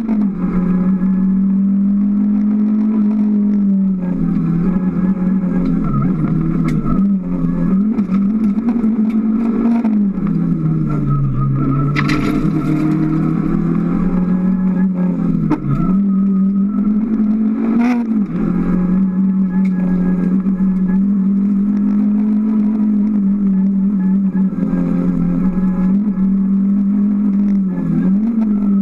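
Rally car's engine heard from inside the cabin, held at high revs along a stage, its pitch dropping briefly at each gear change or lift and climbing again. A longer stretch at lower revs comes about ten seconds in, and a couple of sharp knocks come near the middle.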